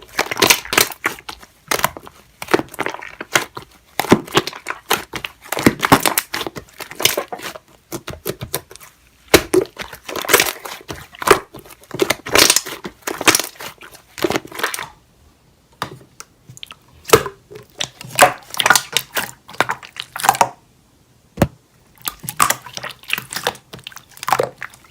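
Slime being squeezed and pressed by hand, making a run of irregular short crackles and pops, with two brief pauses.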